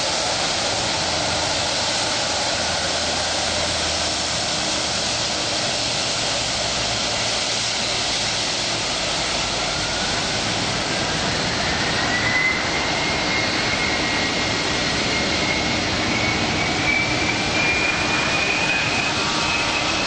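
Jet engines of a taxiing Boeing 757 (Rolls-Royce RB211s), a steady rushing hiss with a high whine that comes in about halfway through and rises slowly in pitch.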